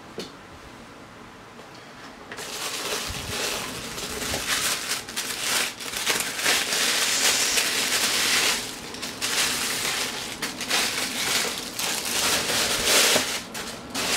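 Tissue paper crinkling and rustling as a shoe is lifted out of its box and unwrapped, starting about two seconds in after a light tap.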